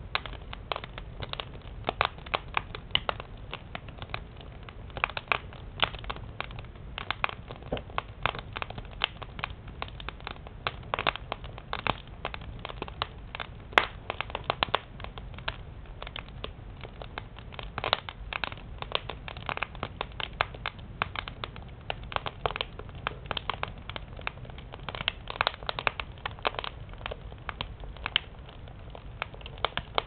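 Split firewood burning in a stove firebox, crackling with many irregular sharp pops over a steady low rumble, with one sharper snap a little before halfway.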